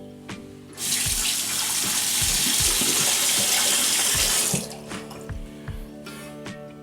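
Faucet running into a sink for about four seconds, turned on about a second in and shut off sharply, over steady background music.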